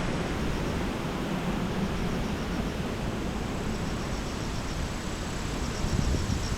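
Strong typhoon wind blowing steadily, an even rushing hiss, with faint high chirps repeating in several short runs.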